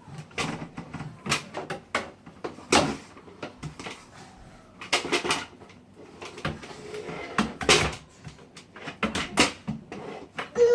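A vacuum cleaner being knocked and bumped about by hand while switched off, giving a string of irregular knocks and clunks with no motor running.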